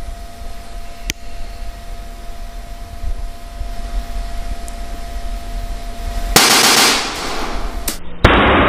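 Rubber party balloon burst by a green laser beam: a sudden loud pop near the end. Before it, a long quiet stretch with a faint steady whine and a single click about a second in, then a loud rushing noise from about six seconds in.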